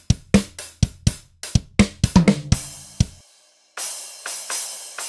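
Multitracked rock drum kit played back from a mix, with kick, snare and cymbals in a steady beat, run through a transient designer plugin. The playback cuts out a little past three seconds. After a short gap it resumes thinner, with cymbals and drum hits but no low end.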